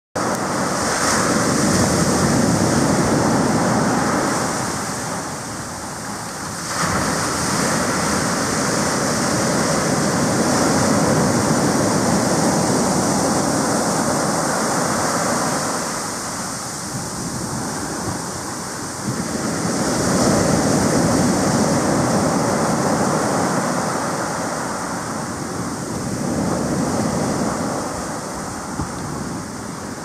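Ocean surf breaking and washing up over a sand beach, swelling and easing every few seconds as each wave comes in and drains back.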